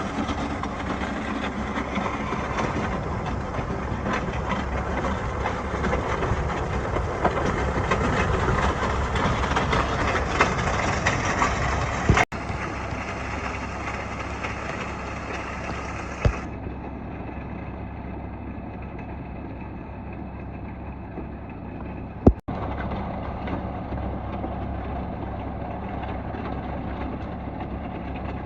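John Deere 6100D tractor's diesel engine running steadily under work, with two brief sudden breaks in the sound about 12 and 22 seconds in.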